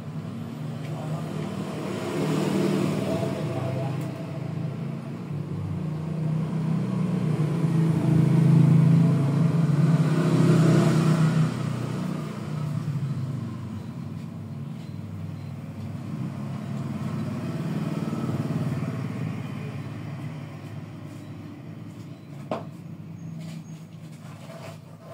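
A motor vehicle's engine, rising and fading twice as it passes, with a low steady hum.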